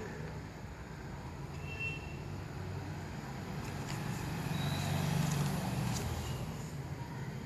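A low, steady rumble that grows a little louder just past the middle, with a few faint, short high tones over it.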